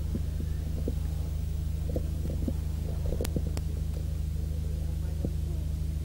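Steady low electrical hum, with two sharp clicks in quick succession about three seconds in.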